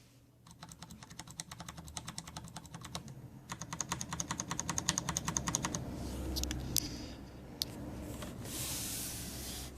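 Fast typing on a mechanical keyboard with Cherry MX Brown switches, the keys clacking in a quick, even stream. The typing stops about six seconds in, and a few scattered clicks and a rustle of handling follow.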